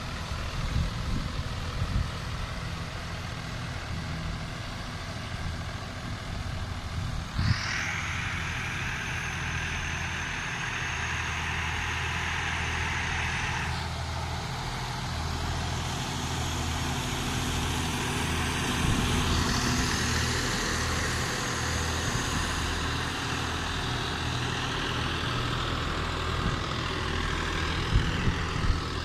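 Diesel engines of an Eicher 650 and a John Deere 4WD tractor running steadily under load as they pull cultivators through soil. A rushing hiss rises for several seconds about a quarter of the way in and comes back in the second half. A few sharp knocks sound near the start, about a quarter of the way in and near the end.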